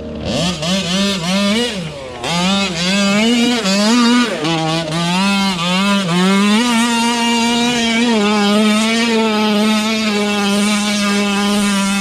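The 46cc RCMAX two-stroke petrol engine of a 1/5-scale MCD XR5 rally car, revving up and down in quick blips for the first few seconds. It is then held at high revs for several seconds and eases off near the end.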